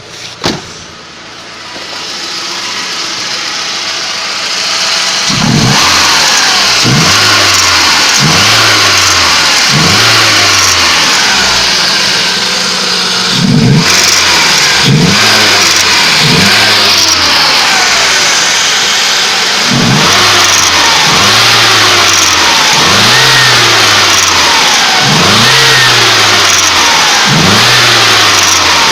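GAZ-31105 Volga's ZMZ-406 inline-four petrol engine, hot, idling after a sharp click near the start, then blipped repeatedly from about five seconds in: the revs climb sharply and fall back roughly every one to two seconds. It is being revved to bring out an extraneous noise that the owner hears as the throttle is released and cannot identify.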